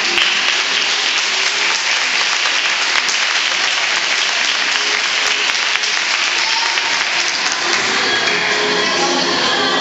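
A hall full of children clapping loudly and steadily over faint background music. The applause eases near the end as the music comes back up.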